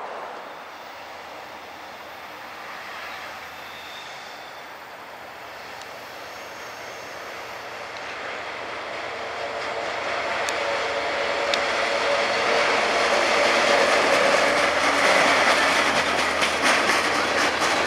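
Freight train backing with Norfolk Southern caboose NS 555013 leading: the rolling of steel wheels grows steadily louder as the cars approach and pass close by. In the second half the clicking of wheels over rail joints builds into a steady clickety-clack.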